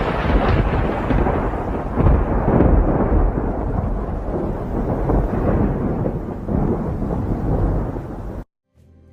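Loud rolling rumble of thunder, swelling a few times, that cuts off abruptly near the end.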